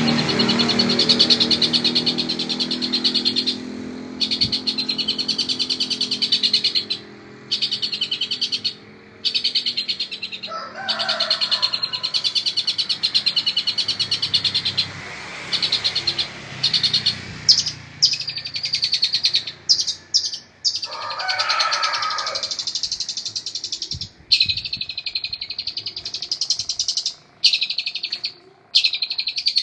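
Songbird kept as a song tutor in the Indonesian bird-keeping hobby, singing long runs of fast, high repeated notes broken by short pauses.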